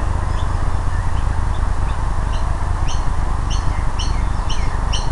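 A bird chirping: short high notes, faint at first and then regular, about three a second, from about halfway in, over a steady low rumble of background noise.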